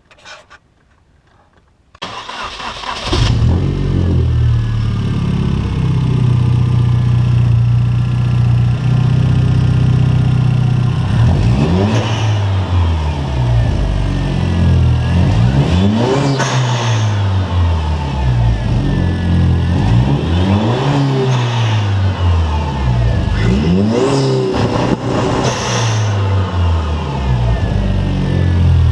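Hyundai Genesis Coupe turbocharged four-cylinder cranks and starts about two seconds in, settles to idle, then is revved several times, rising and falling in pitch. Short hisses come from the newly fitted HKS SSQ blow-off valve venting as the revs drop.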